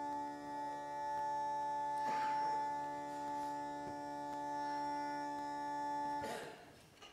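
Uilleann pipe drones sounding a steady chord with no tune played, while the piper handles and adjusts them. The drones cut off about six seconds in with a brief rush of air.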